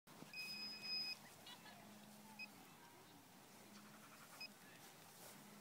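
Electronic beeping from radio-control helicopter gear: one steady beep lasting nearly a second, then two short single beeps about two seconds apart, over a faint low hum.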